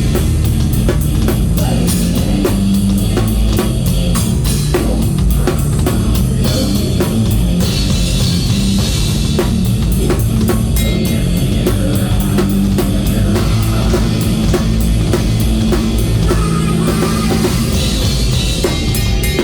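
A rock band playing live, led by a drum kit with fast, dense drumming, with bass and guitar underneath.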